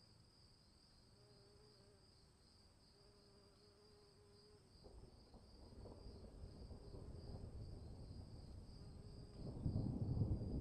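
Insects chirring steadily in a high, slightly pulsing drone. From about halfway a low rumble of the storm builds up, growing louder with a jump near the end.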